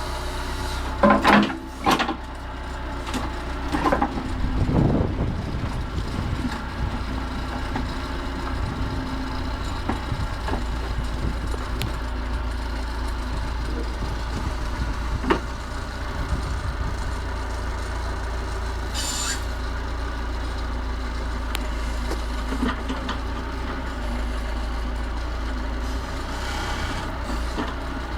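Massey Ferguson 50HX backhoe loader's diesel engine running steadily, with several loud metal clanks and knocks in the first five seconds, another sharp knock midway, and a short hiss about two-thirds through.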